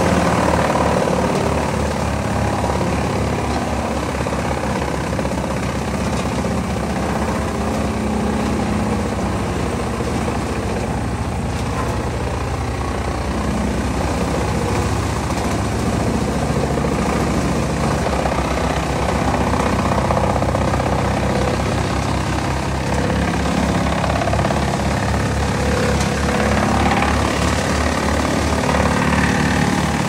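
Wood chipper running steadily while it draws in and chips a small birch tree, branches and leafy twigs fed through the infeed.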